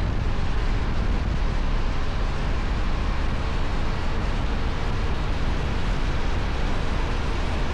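Kove 625X Adventure motorcycle on its stock exhaust, riding at a steady speed: a constant deep engine-and-exhaust rumble mixed with rushing wind noise, with no change in revs.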